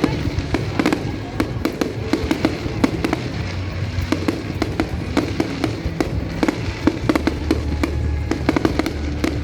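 Aerial fireworks going off in rapid succession, a dense run of sharp bangs and crackles, over music with sustained low bass notes.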